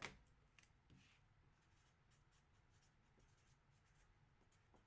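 Near silence: faint room tone with a soft click at the start and light scattered scratchy ticks.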